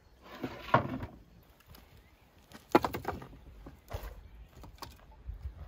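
A brief rustle, then split firewood logs clunking and knocking against each other and the brick as they are stacked into a wood-fired brick oven: a quick cluster of knocks, then two single knocks.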